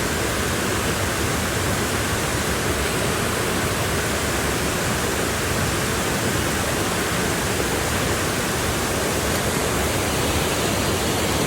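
Steady rush of flowing water, an even, unbroken noise with no change in level.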